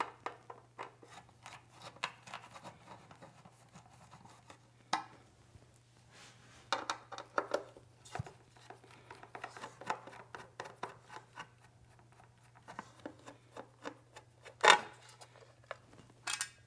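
Screwdriver backing out the screws of an electric water heater's metal access panel cover, with small clicks, scraping and rubbing of metal, and a few louder taps as the cover is handled, the loudest about fifteen seconds in.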